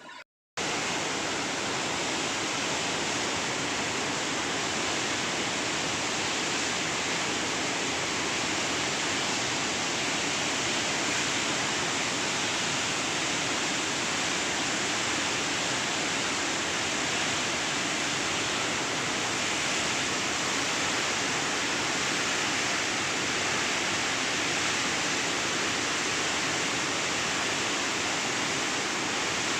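Floodwater pouring through the open spillway gates of a dam: a steady, unbroken rush of water. It starts after a brief cut to silence about half a second in.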